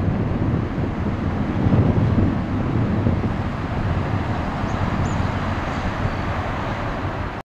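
Four-engined Boeing 747-400 jet airliner climbing away after takeoff: a steady jet engine noise heavy in the low end. It cuts off suddenly near the end.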